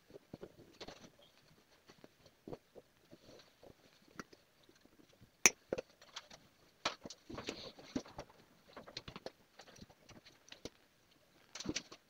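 Hand work on a car seat cushion: the fabric seat cover rustling as it is pulled and folded, with small clicks and taps of pliers and tie wire. One sharper click comes about five and a half seconds in.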